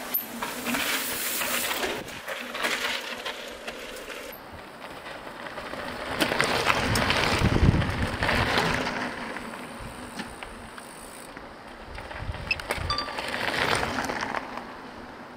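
Mountain bikes riding past, knobby tyres crunching over gravel and dirt trail with a light clinking from the bikes, in several passes that swell and fade.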